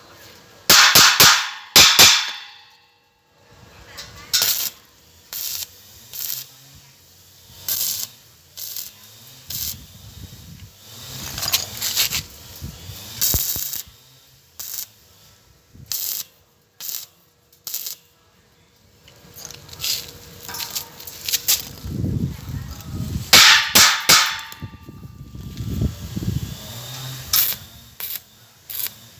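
Arc welding on a steel roof frame: short, irregular bursts of crackle from tack welds, mixed with sharp metal clanks and knocks.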